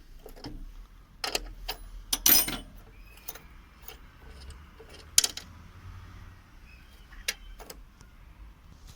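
Metal parts being handled on a workbench: scattered clinks and knocks, the loudest about five seconds in.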